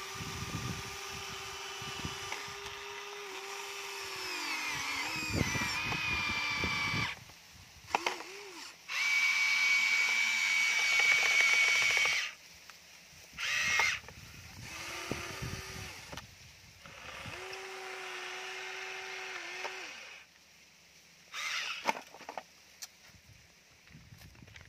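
A Huina remote-control toy excavator's small electric motors whining as the arm and bucket move. They run in stretches of several seconds with short breaks, the pitch dipping now and then, loudest around the middle. A few short knocks fall between the runs.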